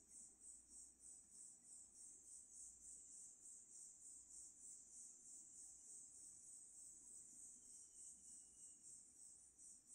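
Near silence with faint, high-pitched insect chirping in the background, pulsing about three times a second.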